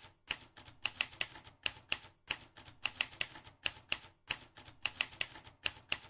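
A rapid, uneven run of sharp clicks, about three to four a second, like keys being struck.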